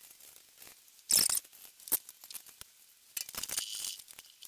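Glacern steel milling vise being set down and slid on the mill's cast-iron T-slot table: scattered metal clinks, a short scrape about a second in and a longer rasp near the end.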